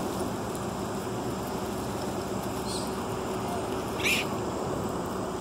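Steady low outdoor rumble, with one brief high squeak about four seconds in.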